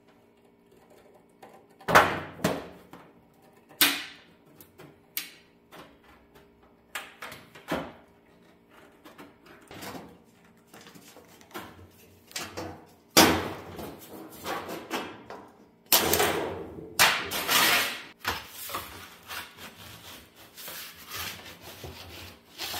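Aviation tin snips cutting thin galvanized sheet metal in a series of separate sharp snips, with the loose sheet flexing and rattling between cuts, busiest about two thirds of the way through.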